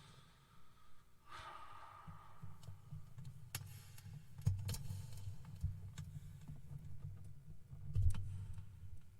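Quiet room noise after the music stops: a low rumble with a short hiss about a second in and a few scattered small clicks and knocks, the loudest near the end.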